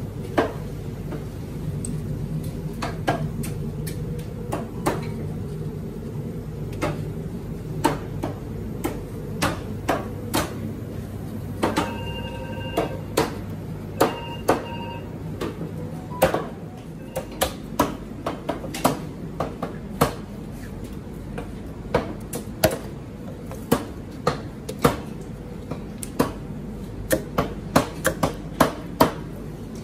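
Sharp knocks of a knife chopping meat on a wooden butcher's block, coming faster and closer together in the second half, over a steady low hum. A short electronic beep sounds twice near the middle.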